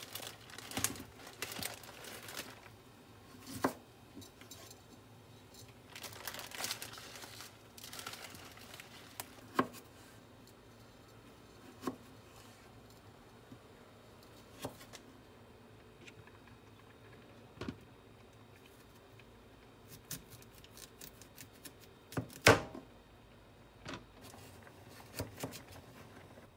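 Kitchen knife cutting cucumber and carrot into sticks on a cutting board: separate knocks of the blade on the board every few seconds, the loudest about 22 seconds in, with soft scratchy slicing sounds between them.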